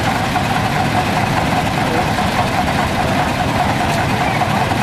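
Small 6 hp, 650 cc diesel engine of a 1956 Ludwigsfelde DK 2002 L Dieselkarren platform truck idling steadily, with a rapid low rumble and a constant mid-pitched tone.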